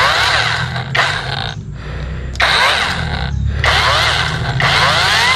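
KEELAT cordless electric mini chainsaw cutting into a branch in three bursts of about a second each, with short breaks between.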